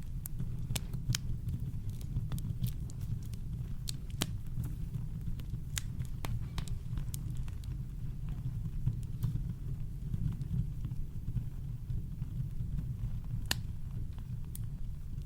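Campfire crackling, with irregular sharp pops and snaps over a steady deep rumble of brown noise.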